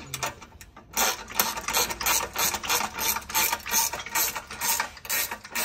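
Ratcheting ring spanner clicking in quick repeated strokes, about three a second, as it runs a nylock nut down a bolt. The strokes start about a second in.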